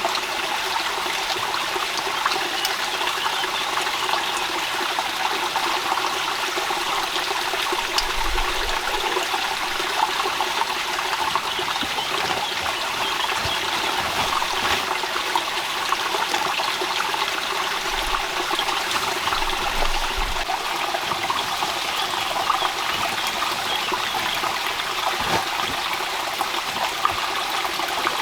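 Steady rain falling, with water trickling and many small drips and taps.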